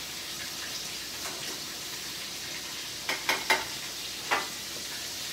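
Food frying in oil in a skillet on the stove, a steady sizzle. A few sharp knocks and clicks sound over it, three close together about three seconds in and one more a second later.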